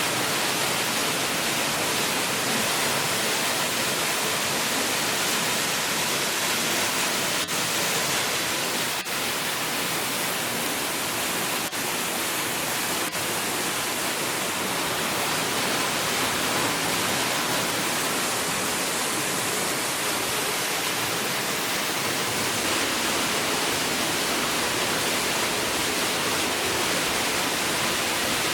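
Santa Ynez Falls, a small seasonal waterfall still flowing, pouring steadily: an even, unbroken rush of falling water.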